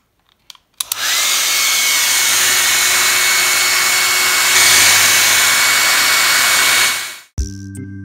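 Hand-held hair dryer switched on about a second in. Its motor whine rises briefly as it spins up, then it blows steadily at full speed and is switched off shortly before the end. Background music with a regular beat follows.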